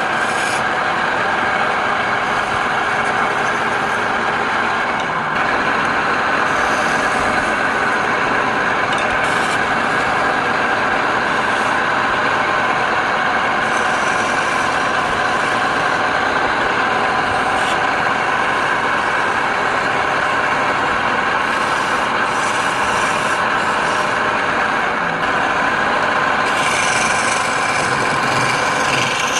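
Wood lathe running steadily while a turning tool scrapes and cuts the spinning wood, a continuous rasping noise over the machine's hum.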